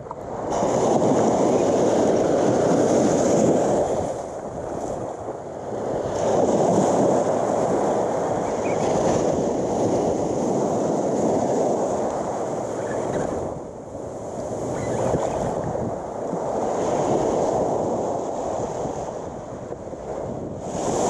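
Surf breaking on a sandy beach: a loud, steady rush of wash that swells and falls back every few seconds as each wave comes in.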